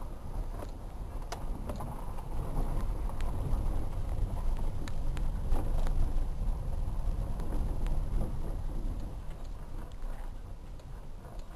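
Dacia Logan car driving down a rough unpaved mountain road: a steady low rumble with scattered sharp clicks and knocks from the rough road surface, growing louder toward the middle and easing off near the end.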